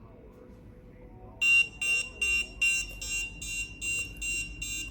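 Electronic alarm buzzer of a home-built proximity alarm beeping rapidly, about nine short high-pitched beeps at roughly two and a half a second, starting about a second and a half in, the first the loudest. It is the alarm going off because something has come too close to the ultrasonic sensor.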